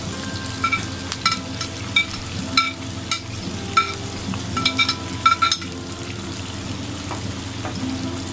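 Sliced onions dropping into hot oil on an iron tawa and sizzling, while a metal skimmer taps and scrapes them off a china plate with about a dozen sharp ringing clinks over the first five seconds or so; after that only the steady sizzle of onions and green chillies frying.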